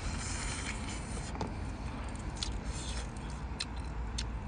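A cooked crab being bitten into and pulled apart by hand: scattered small cracks and clicks from the shell, over a steady low background noise.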